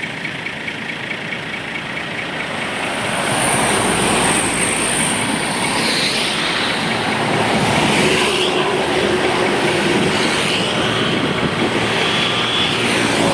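Roadside traffic noise as a heavy vehicle drives past close by, growing louder about three seconds in and staying loud with steady engine and tyre noise.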